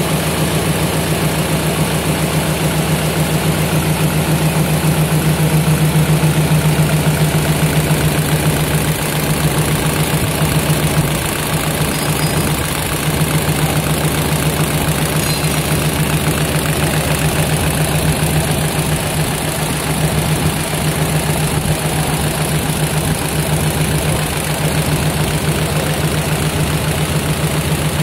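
Yitai YTB-C computerized jacquard needle loom running at speed while weaving narrow tape: a loud, steady, rapid mechanical clatter over a strong low hum.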